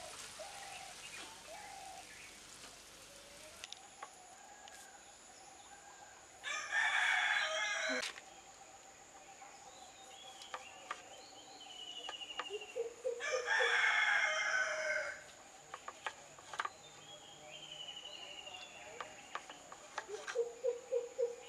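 A rooster crowing twice, about six seconds apart, loud against a quiet background with a few chirps. Light knife taps from dicing a tomato on a wooden cutting board come in between and cluster near the end.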